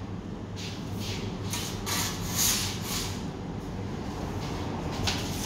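Aluminium pizza peel scraping and sliding on the stone floor of a wood-fired pizza oven, in several short rasping strokes over a steady low hum.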